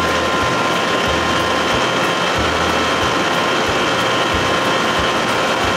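Johnson 60 hp outboard running steadily at speed, with rushing water from the hull and wake, and irregular low wind thumps on the microphone.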